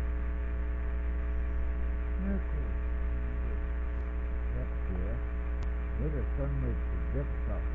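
Steady electrical hum from a faulty microphone: a low buzz with many evenly spaced overtones, which the owner puts down to a broken ground wire in the mic.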